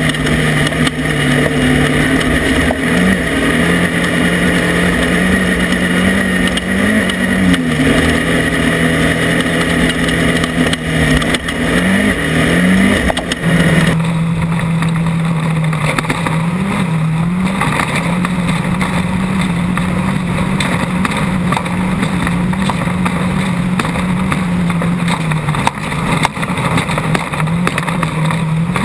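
An off-road race car's engine running steadily at speed, its pitch dipping and rising briefly now and then. A hiss over it thins out abruptly about halfway through.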